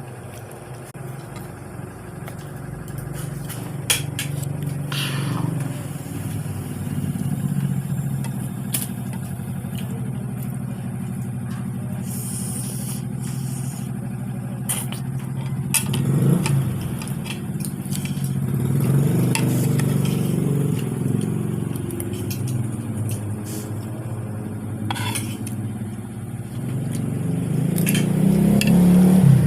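Spoon clicking against a plate now and then during eating, over a continuous low motor-vehicle engine hum that grows louder near the end.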